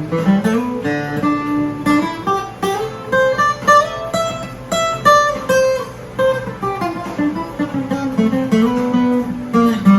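Guitar music played from a phone over Bluetooth through the acoustic-electric guitar's own built-in speaker: a continuous melody of plucked and strummed notes.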